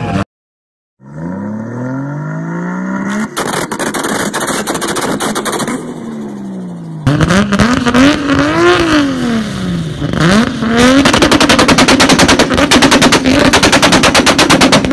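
Car engines revving hard. After a brief gap, one engine revs up and down with a crackle of pops. Then a Toyota Supra's engine revs up and down and is held against its rev limiter, giving a rapid, even stutter of exhaust pops through the last few seconds.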